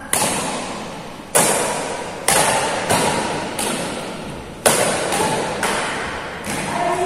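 Badminton rackets hitting a shuttlecock back and forth in a rally: sharp cracks roughly once a second, each ringing out in the echo of a large hall, with lighter knocks in between.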